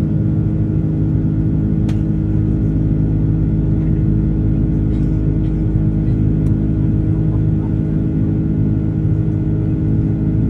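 Steady jet engine drone and rumble inside the passenger cabin of an Airbus A330, a constant hum of several steady tones. A single sharp click about two seconds in.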